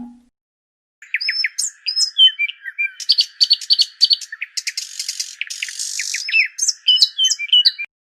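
Birds chirping and tweeting, a busy overlapping run of short calls that glide up and down in pitch. The effect starts abruptly about a second in and cuts off just before the end.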